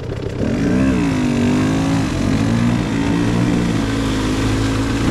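KTM 150 XC-W two-stroke dirt bike engine running under the rider's throttle, its revs wavering up and down, with a dip and rise about half a second to a second in.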